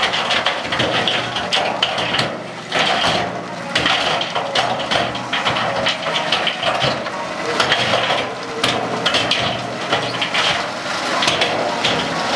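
Building-site work with hand tools: a busy, irregular clatter of many knocks and scrapes, over a faint low steady hum.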